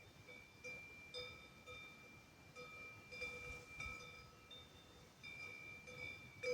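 Cowbells on grazing cows clanking faintly, with irregular strikes about two a second, each ringing on.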